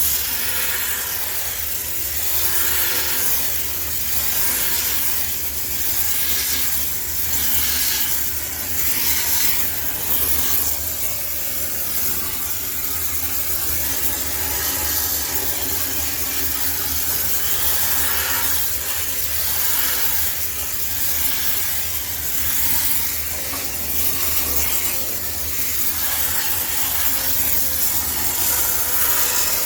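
High-pressure steam cleaner hissing steadily, with a rhythmic rubbing, scrubbing sound rising and falling about once a second as it is worked back and forth over a washing machine for sterilization.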